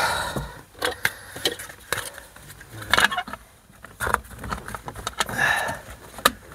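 Plastic trim cover around the rear-view mirror and rain sensor being handled and fitted against the windscreen mount: a string of irregular clicks and taps with short bursts of plastic rubbing and scraping.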